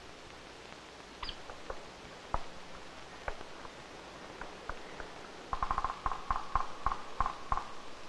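Downy woodpecker pecking at a dead wooden stump. Single scattered taps come first, then a quicker, louder run of about ten knocks in the last two and a half seconds.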